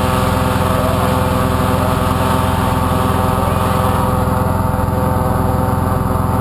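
Petrol-engined balloon inflator fan running steadily at full speed, blowing cold air into a hot air balloon envelope laid out on the ground during cold inflation.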